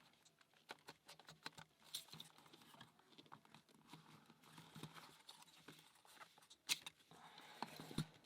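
Faint, scattered clicks and taps of a wooden mechanical puzzle lock being handled, with one sharper click a little before the end.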